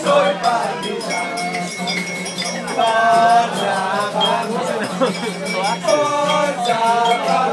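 Music with men singing along in a lively bar, a sing-along over a background of chatter and voices.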